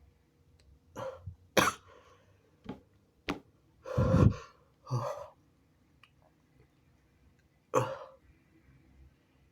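A person's held-back sneezes: a run of about seven short, stifled bursts, the biggest about four seconds in and the last near the end.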